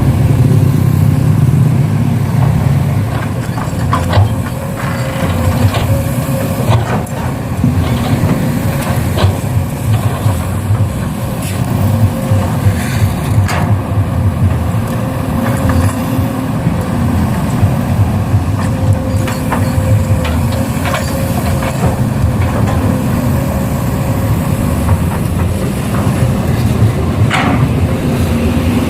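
Radio-controlled model truck and excavator working, giving a steady low truck-engine rumble with a faint steady whine. Scattered sharp clicks and knocks run through it.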